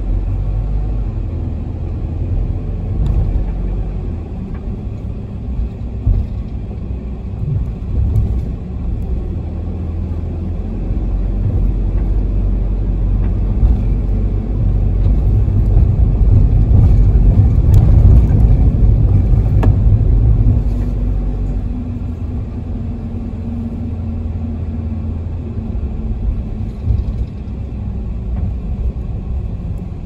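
Toyota HiAce minibus with its diesel engine under way, heard from inside the cabin: a steady low rumble of engine and road noise that grows louder for several seconds midway through, then settles, with a few light knocks and rattles.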